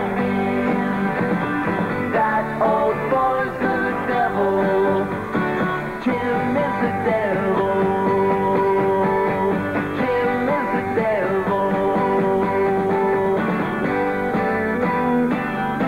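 Rock song playing, with guitar prominent and long held notes.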